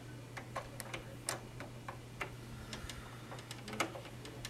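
Irregular small metallic clicks and taps of a screwdriver working screws back into the TV's light-engine housing, over a steady low hum.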